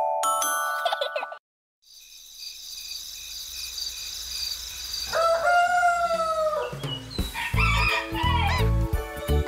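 A rooster crows once, a long call that rises and then holds, about five seconds in, over a steady high chirring of a night-time ambience. Just before, a short chiming mallet jingle ends and there is a brief silence. About seven seconds in, bright children's music with bird chirps begins.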